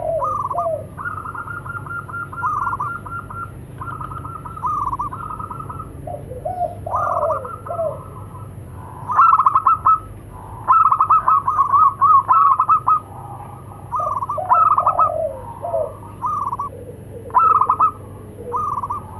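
Several zebra doves cooing back and forth, with rapid trilled coo phrases from higher- and lower-pitched birds overlapping and answering one another. The calling is loudest about halfway through.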